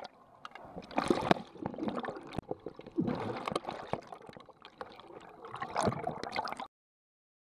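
Underwater pool sound picked up through an underwater camera: gurgling bubbles and rushing water from swimmers, in uneven swells with sharp clicks and knocks among them. It cuts off suddenly near the end.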